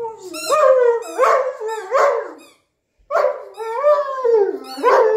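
Rubber squeaky toy squeaking over and over as a Newfoundland dog chews it. The squeaks come in a quick string, stop briefly about three seconds in, then start again in another string.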